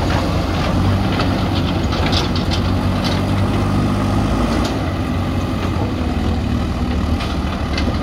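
JCB 3DX backhoe loader's diesel engine running steadily as the machine works its front bucket through soil and rubble, with a cluster of metallic clanks and knocks about two to three seconds in and a few more near the end.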